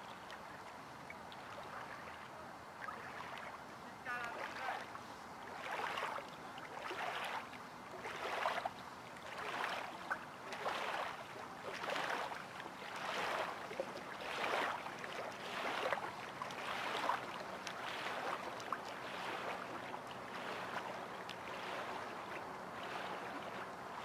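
Small lake wavelets lapping at the shoreline in a steady rhythm, about one soft splash a second. The splashes are strongest through the middle and grow weaker near the end.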